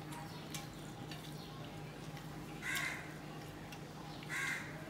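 Two short harsh crow caws about a second and a half apart, over faint clicks of hand eating from a steel plate and a steady low hum.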